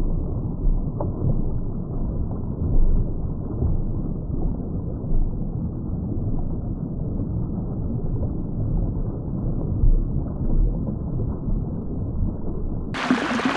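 Muddy storm runoff rushing and churning down an overflowing drainage ditch, heard muffled and deep with uneven surges. Near the end the sound suddenly turns bright and clear as a rushing stream.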